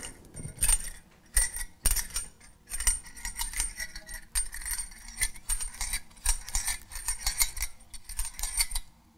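A 1 lb propane cylinder being screwed onto a camp stove's brass regulator, with quick irregular metallic clicks and scrapes from the threads and fittings as it is turned. The clicking stops shortly before the end.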